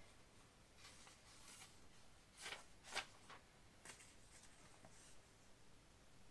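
Faint rustling of paper instruction sheets being picked up and handled, a handful of short soft rustles with near silence between them.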